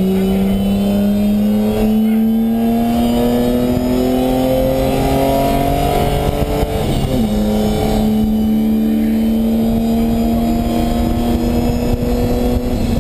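BMW E30 325is straight-six engine at wide-open throttle, heard from inside the cabin, its pitch climbing steadily as the car accelerates. About seven seconds in the pitch drops sharply at an upshift, then climbs again more slowly in the higher gear.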